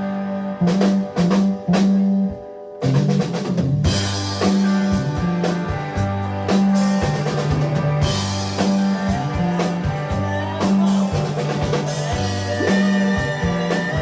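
Live rock band playing with drum kit, bass and guitar. A few sharp stop-time hits in the first two seconds lead to a brief break, and the full band comes back in near the three-second mark.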